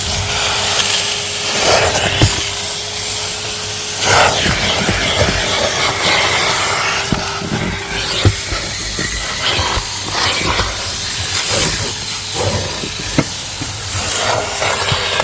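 Vacuum cleaner running with a steady motor hum and a loud rushing hiss of suction. Scattered knocks and clicks come from the nozzle bumping against the car interior.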